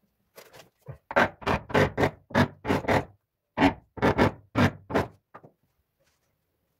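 A cordless tile vibrator pressed flat on a large ceramic wall tile, buzzing in short rapid bursts of about four a second, in two runs with a brief break. It is settling the tile into its adhesive bed.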